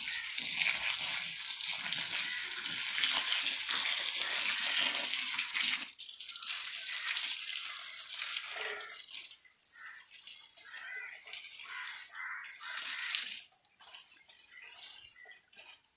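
Water spraying from a garden hose onto plant leaves, a steady hiss. It is dense for about the first six seconds, turns patchier as the spray moves across the foliage, and fades out near the end.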